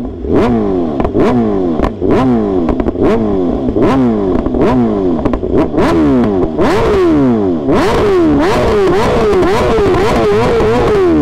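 2023 BMW M1000RR inline-four, fitted with a full titanium exhaust (Akrapovic headers, SC Project slip-on), revved again and again. Quick rising-and-falling blips come about twice a second, then faster and shallower near the end, with sharp pops and cracks between them. Loud.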